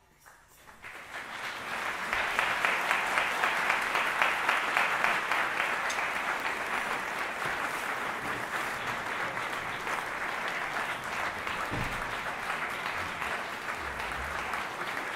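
Audience applauding in a concert hall. The clapping rises from near silence, swells over the first two seconds and then carries on steadily.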